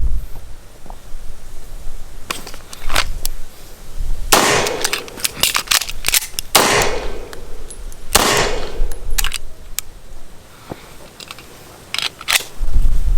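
Gunshots: three loud shots, each with a long ringing echo, the second about two and a half seconds after the first and the third a second and a half later, among several fainter, sharper cracks.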